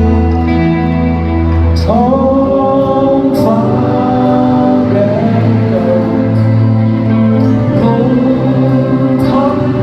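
Rock band music: sustained chords, with a voice singing long, sliding notes from about two seconds in.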